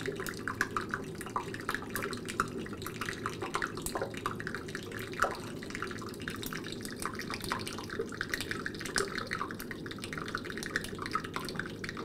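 Melting icebergs crackling and popping: a dense, steady fizz of tiny clicks as air bubbles trapped in the glacial ice for centuries burst out into the water, over a steady low rumble.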